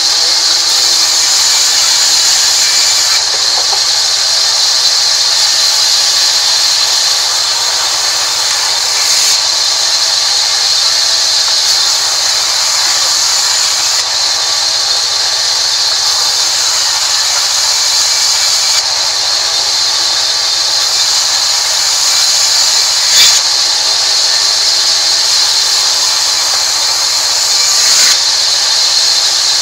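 Sawmill band saw running and ripping a mahogany board lengthwise: a steady, loud hiss of the blade cutting through the wood. A sharp knock comes about two-thirds of the way through, and another comes near the end.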